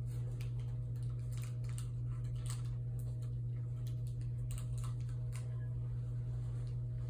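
A steady low hum runs under scattered light clicks and rustles, the sounds of small objects being handled close by.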